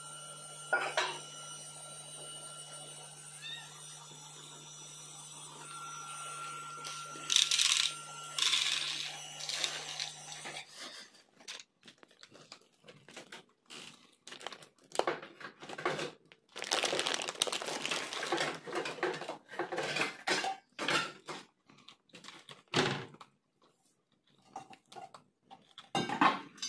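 A calico cat crunching dry kibble from a plastic bowl: quick irregular chewing crunches in clusters with short pauses, through the second half. Before that there is a steady electrical hum with a few brief clatters about seven to ten seconds in.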